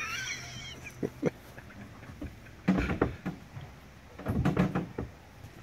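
A raccoon kit's short, high chittering cry at the start, then two sharp knocks and two bursts of bumping and scraping inside a fiberglass boat, from the man prodding at the hiding raccoon kits with a pole.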